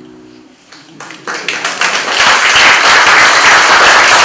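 Audience applauding as a song ends: the last acoustic guitar notes fade away, scattered claps start about a second in, and they swell into full, steady applause a second later.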